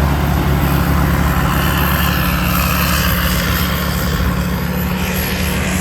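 Isuzu six-cylinder diesel engine of a TAMCO rice combine harvester running steadily while harvesting, with a continuous rushing machinery noise over the low engine drone.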